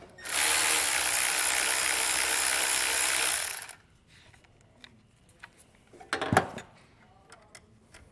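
Milwaukee cordless electric ratchet running steadily for about three and a half seconds as it drives the nut down on a car battery terminal, then stopping. Small clicks and one short knock follow about six seconds in.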